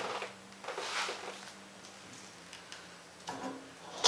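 Scattered light knocks and rustles of a person moving about and handling things on a workshop floor, over a steady low hum; a sharper knock comes at the very end.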